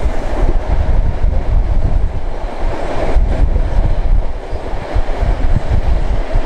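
A steam-hauled passenger train in motion, its rumble heard from on board with heavy wind buffeting the microphone.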